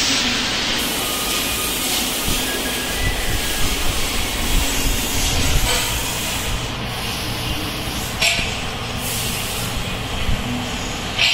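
Truck brake roller tester running: its electric drive motors and chain-driven rollers give a steady mechanical rumble with hiss, and a sharp click about eight seconds in.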